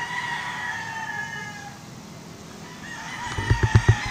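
A rooster crowing: one long call that falls slightly at its end, then a second call beginning about three seconds in. A quick run of low thumps near the end is the loudest sound.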